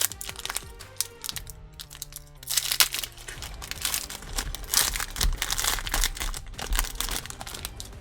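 A football trading-card pack's wrapper being torn open and crinkled by hand, a dense crackling that builds up about two and a half seconds in. Background music plays underneath.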